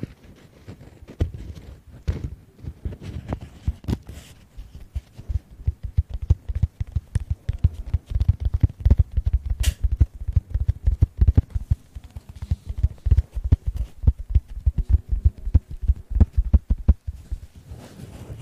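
A soft white fluffy object rubbed, squeezed and brushed directly against the microphones as an ASMR trigger. It makes a dense run of rapid, muffled low thumps and rustles, busiest through the middle.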